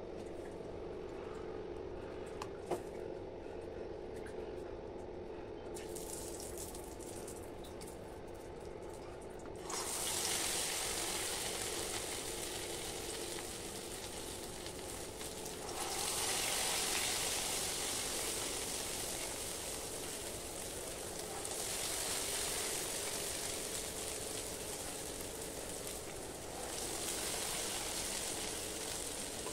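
Vada batter dropped into hot oil in a kadai and deep-frying: a sizzling hiss starts suddenly about a third of the way in and swells three more times as further vadas go in, over a steady hum.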